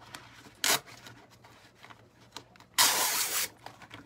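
Rustling and rubbing of a crafting transfer's stiff backing sheets as they are handled: a short burst under a second in and a longer, louder one near three seconds in.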